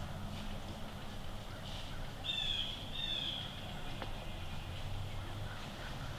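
A bird calling twice outdoors: two short, high calls of about half a second each, close together a little before the middle.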